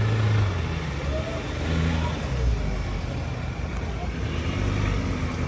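An off-road 4x4's engine running steadily at low revs, with faint voices in the background.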